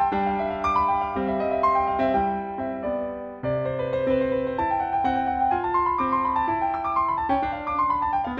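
Background music: a gentle piano melody over sustained chords, with a brief drop in level about three seconds in before the next phrase begins.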